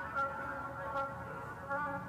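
Background music: a melody of short held notes with a light tick about once a second.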